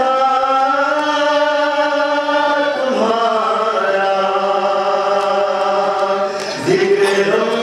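Devotional chanting: a voice holds long drawn-out sung notes in slow phrases, with fresh phrases starting about three seconds in and again near the end.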